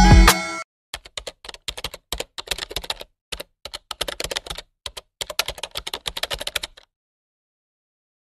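Computer-keyboard typing sound effect: quick key clicks in uneven runs for about six seconds, stopping dead near the end. The tail of loud intro music cuts off just after the start.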